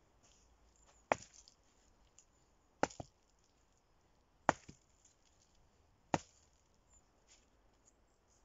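An axe chopping wood on a stump: four sharp blows about a second and a half apart, two of them followed at once by a lighter knock.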